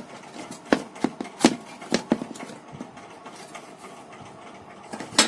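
Clicks and knocks of a set-top box's casing being handled and opened: several sharp taps in the first couple of seconds and one more near the end.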